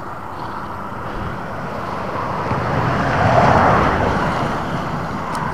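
A steady rushing noise that swells about three seconds in and then eases off: a vehicle passing on the road over the bridge.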